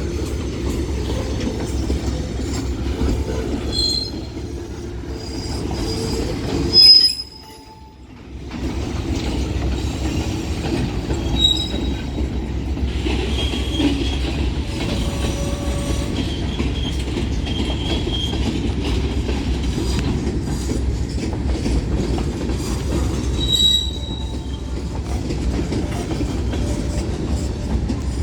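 A manifest freight train's cars roll past with a steady rumble, clickety-clack and scattered high wheel squeals. About seven seconds in there is one sharp loud bang, and the sound drops out for a second or so.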